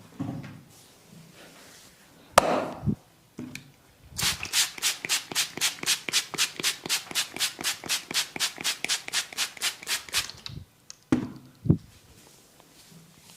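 Massage strokes: fast, even slaps or taps of the masseur's hands on skin, about five a second for some six seconds. They come after a single sharp crack a couple of seconds in and are followed by a few soft thumps near the end.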